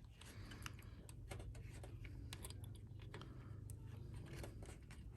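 PC cables and plastic connectors being handled and pushed into motherboard headers: faint, irregular small clicks and rustles.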